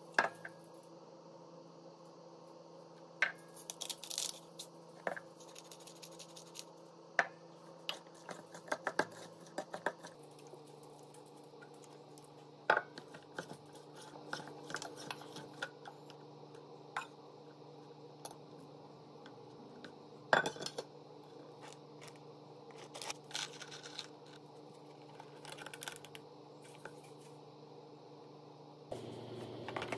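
A metal spoon clinking and scraping against stainless steel mixing bowls as a salad is stirred: scattered sharp clicks and short clattering runs over a low steady hum.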